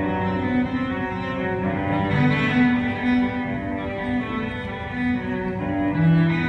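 Slow music: a low bowed-string melody of held notes over sustained chords.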